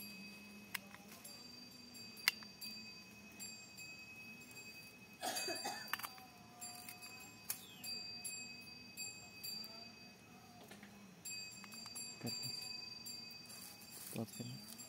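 Hand pruning secateurs working on a guava branch, cutting away a ring of bark for air-layering: a few sharp clicks from the blades and a louder stretch of scraping and rustling about five seconds in. A faint steady high ringing tone comes and goes underneath.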